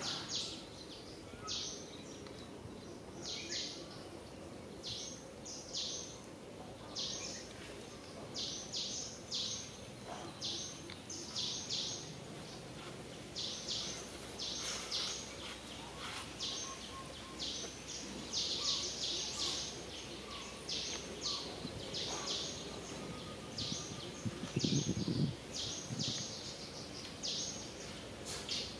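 Outdoor natural ambience with many short, high chirps coming in irregular runs over a steady low hiss, and a brief lower sound near the end.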